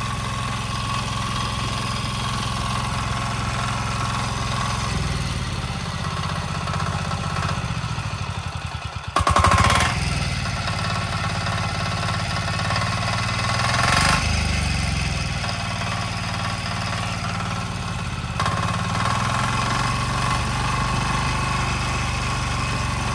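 418cc single-cylinder air-cooled Chinese diesel engine running on its first start, its note shifting a few times, with a sudden louder stretch about nine seconds in.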